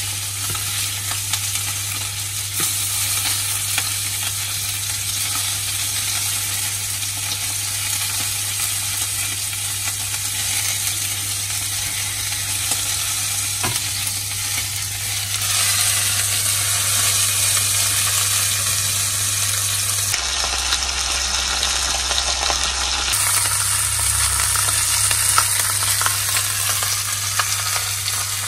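Food frying in a hot pan: a steady sizzle with a low hum underneath.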